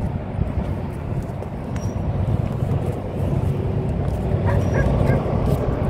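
Low, steady diesel engine rumble from unseen locomotives, slowly growing louder. A few faint short higher sounds near the end.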